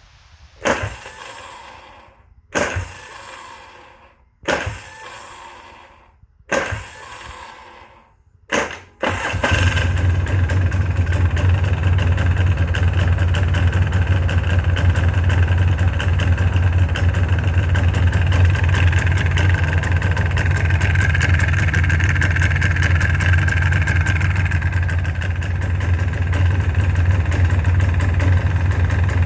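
Polaris 400L Xplorer ATV engine tried five times in short bursts that each die away, then catching about nine seconds in and running steadily. The owner hears a knock somewhere in the motor while it runs.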